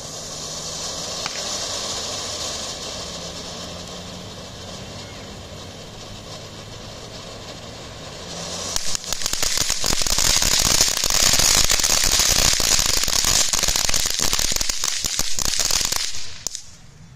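TNT Magic Seashell ground fountain firework hissing steadily as it sprays sparks. About eight and a half seconds in it turns to a much louder, dense crackling of rapid pops, which cuts off suddenly near the end as the fountain burns out.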